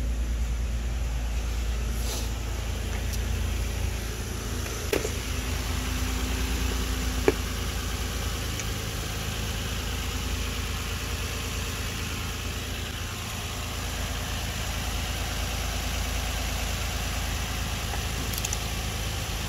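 Nissan Maxima's 3.5-litre V6 idling steadily, heard from the open engine bay, with a few sharp clicks about five and seven seconds in.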